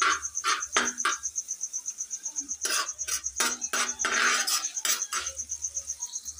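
Slotted metal spatula scraping and knocking on a tawa as a masala is stirred: a run of quick strokes in the first second, then another from about three to five seconds in. A steady, rapid, high-pitched chirping, like a cricket's, runs underneath.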